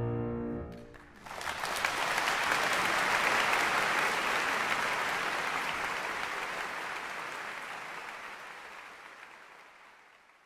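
The final held chord of the two pianos dies away, and about a second in an audience breaks into applause that slowly fades out.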